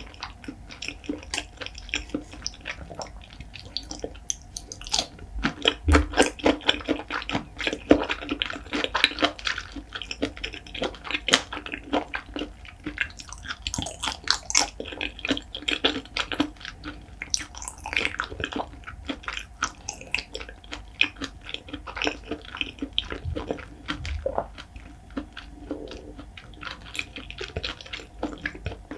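Close-miked wet chewing and lip smacking of soft raw seafood: a dense run of quick moist clicks and squishes.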